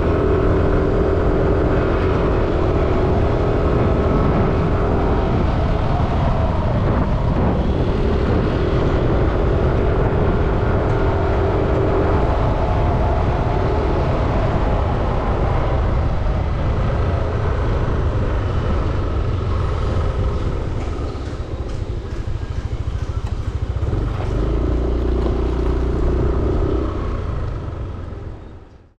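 Motorcycle running at riding speed, its engine hum coming and going in stretches over a steady rumble of wind and road noise on the microphone. The sound fades out just before the end.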